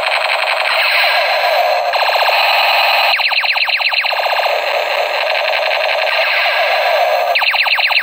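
Battery-powered plastic toy M16 rifle playing its electronic firing sound effect, switching several times between a fast pulsing machine-gun rattle and a wavering synthetic tone.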